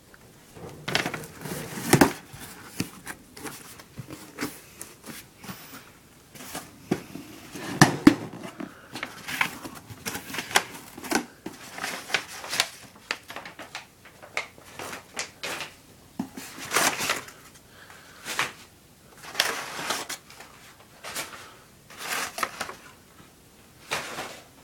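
Cardboard shipping box being opened and the crumpled kraft packing paper inside handled and pulled out: irregular rustling, crinkling and scraping of paper and cardboard in uneven bursts.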